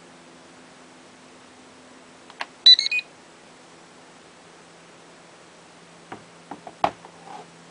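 A click, then a short, loud, choppy electronic beep from a Spektrum DX5e transmitter, followed near the end by a few light clicks and knocks as the transmitter is handled.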